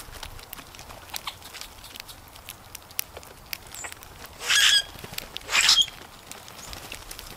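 Grackles and a blue jay foraging in leaf litter: scattered light ticks and rustles of pecking and hopping. A little past the middle come two loud, harsh bursts, each about half a second long and a second apart.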